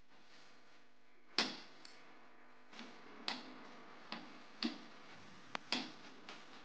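Knife scoring a rolled sheet of peanut chikki into strips, its blade tapping and clicking against the rolling board: a series of irregular sharp taps, the loudest about a second and a half in.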